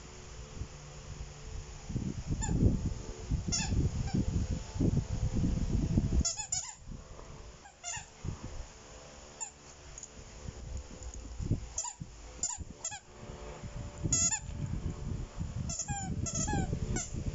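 Rubber squeaky toy squeaking as a small dog bites it: single honking squeaks and quick runs of several, at irregular intervals. In the first half there is loud rustling from the dog moving about on the fabric mat.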